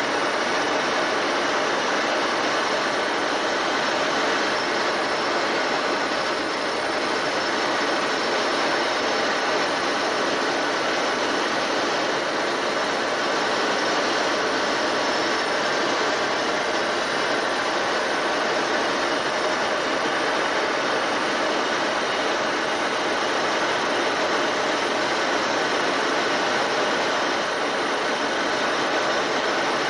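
Cockpit noise of a fighter jet in flight, heard from inside the canopy: the engine and rushing airflow make a steady, unbroken noise at an even level.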